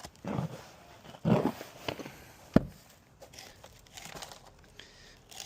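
Rustling and crumpling of a potato container and its soil and dead plant tops being handled and tipped over, in a few short bursts, with one sharp knock about two and a half seconds in.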